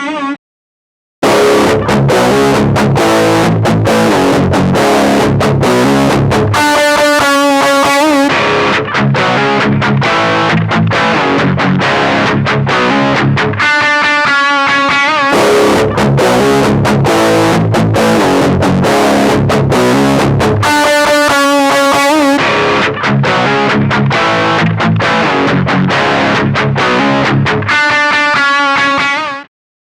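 Electric guitar played through a mini practice amp set to a distorted tone, running through a repeating riff. It starts after a short gap about a second in and stops abruptly near the end.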